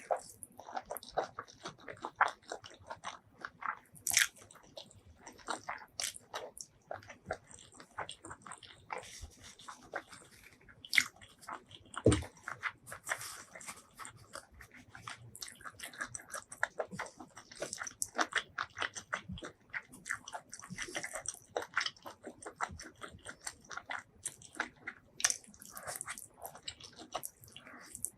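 A person chewing and biting food close to the microphone: a steady run of wet, crisp mouth clicks, with a few louder bites scattered through.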